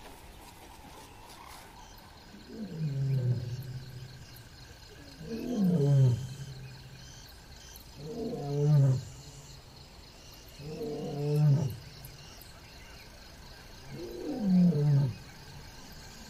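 Lion roaring: five long roars about three seconds apart, each swelling in loudness and sliding down in pitch into a low held tail, with a faint steady insect drone beneath.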